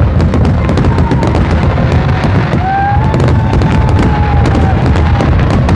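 Fireworks display in a dense barrage: continuous overlapping booms from shell bursts, with rapid crackling throughout. A long, high held tone sounds over it from about two and a half seconds in.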